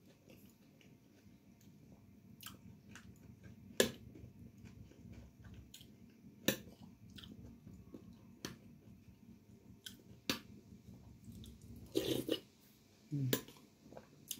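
A person eating, chewing food close to the microphone. Every couple of seconds there is a sharp click of cutlery on a dish, the loudest about four seconds in, and two louder rustling sounds come near the end.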